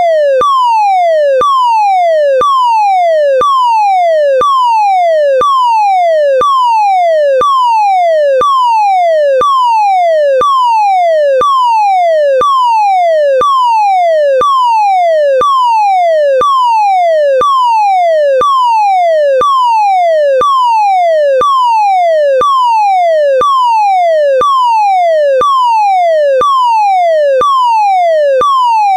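German DIN 33404 fire alarm evacuation tone: a loud electronic tone that falls in pitch over about one second, then jumps back up and falls again, repeating without a break. A faint click marks each restart at the top of the sweep.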